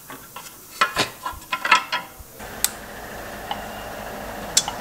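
Light clicks and taps of a carbon-fibre rear hugger being handled and offered up against a motorcycle swingarm, several in quick succession in the first half, then a few single clicks.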